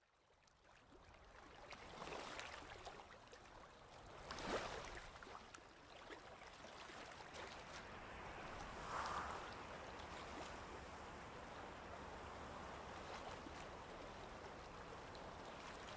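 Quiet, steady rushing ambience fading in from silence over the first two seconds, with brief louder swells about two, four and a half and nine seconds in.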